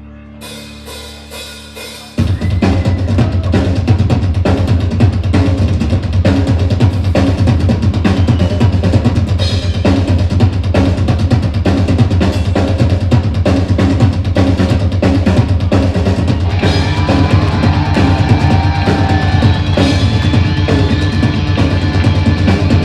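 A rock band playing live with drum kit, bass and electric guitars. The first couple of seconds are a quieter, pulsing build-up; then the full band comes in loudly with the drums. About two-thirds of the way through, higher melodic lines join over the top.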